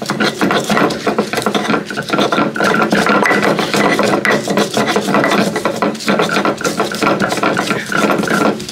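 Stone pestle (ulekan) crushing and grinding red chillies on a flat stone mortar (cobek): rapid, continuous scraping and grinding of stone on stone.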